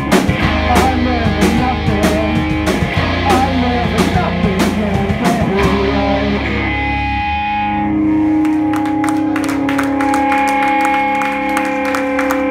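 Live rock band playing loud: distorted electric guitars, bass and drum kit. About seven seconds in the drums stop and the song ends on the guitar amplifiers ringing with several steady, held tones.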